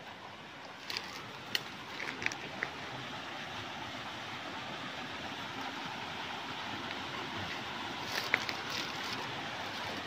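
Steady rush of a waterfall heard through the forest, slowly growing louder, with a few short sharp clicks about a second in and again near the end.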